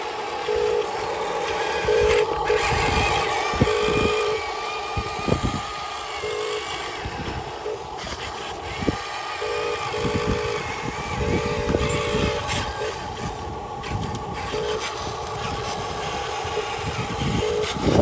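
Huina radio-controlled dump truck's small electric drive motor whining in short stop-and-start bursts as it is driven with a load of soil, with scattered low knocks and thumps from the truck moving over the planks.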